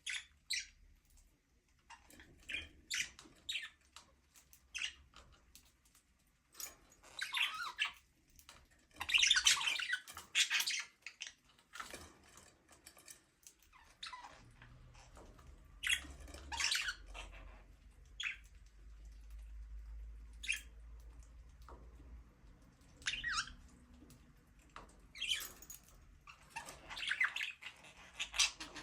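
Budgerigars chirping and warbling: many short high chirps and chattering bursts, with louder clusters of chatter now and then.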